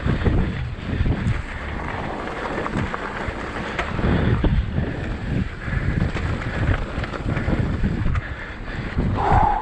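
Wind buffeting the microphone of a camera riding on a mountain bike, with uneven low rumble and knocks from the bike rolling over a rough trail. A short higher-pitched sound comes near the end.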